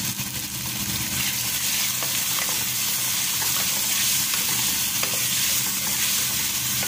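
Raw chicken breast pieces sizzling in hot oil with fried onions and garlic in a metal pot, stirred with a spatula that scrapes and taps the pot now and then. The sizzle grows slightly louder about a second in.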